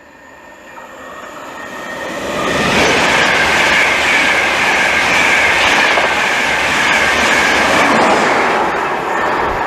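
An LNER InterCity 225 (Class 91 electric locomotive 91111 with driving van trailer 82213) passes through the station without stopping. The sound builds over about three seconds to a loud, steady rush of wheels on rail with a high ringing tone, then eases slightly near the end.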